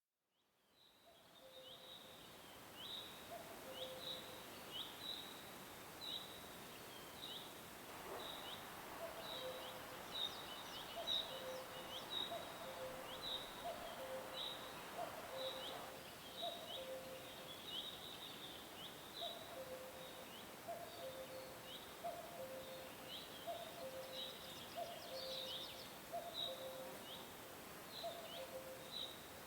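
Birds chirping over a steady background hiss: short, high, drooping chirps about twice a second. From about a quarter of the way in they are joined by a lower two-note call that steps down in pitch and repeats every second or so.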